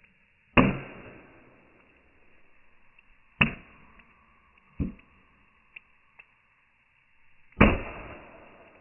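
Four sharp knocks or blows, spaced a few seconds apart. The first and last are the loudest and trail off over about a second.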